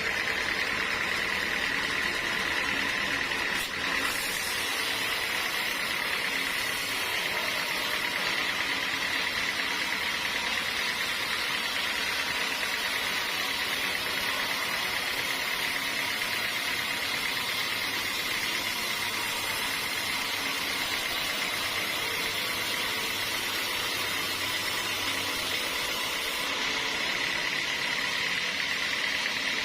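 Sawmill saw running steadily, a high even whine over a wide hiss.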